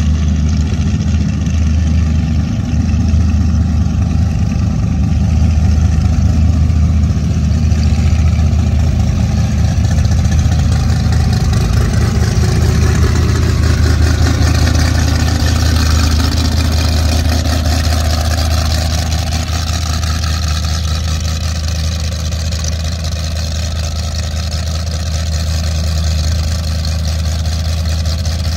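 Cigarette 42 Tiger powerboat's inboard engines idling on the trailer, a loud, steady, deep rumble.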